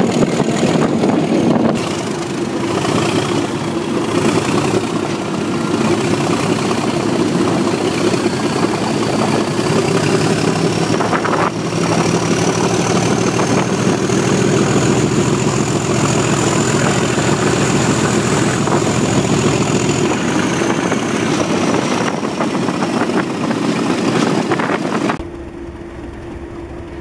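Class 37 diesel locomotives' English Electric V12 engines working hard under power, heard from a carriage window close behind them, with a high turbocharger whistle that rises and then falls back. About 25 seconds in it cuts to a Class 37 idling at a platform, much quieter.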